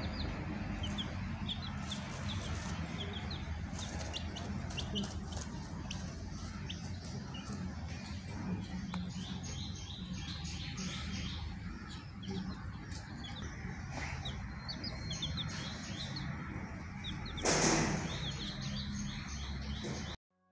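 Baby chicks peeping: many short, high chirps in quick runs over a steady low hum, with a brief louder noise about three seconds before the sound cuts off.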